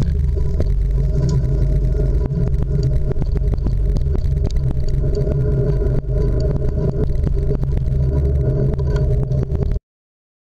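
Street traffic at a city intersection, cars passing, under a heavy low rumble with scattered small clicks. The sound cuts off suddenly near the end.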